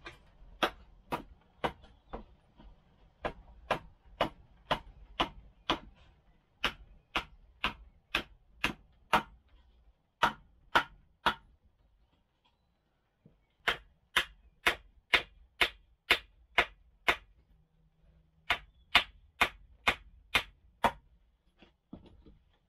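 A club hammer drives sharpened wooden stakes into soil, giving sharp knocks about two a second. The knocks come in several runs with short pauses between them.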